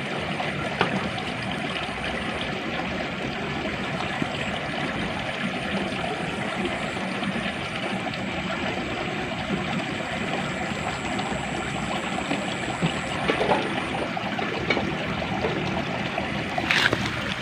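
Steady rush of flowing, trickling water, with a few faint ticks.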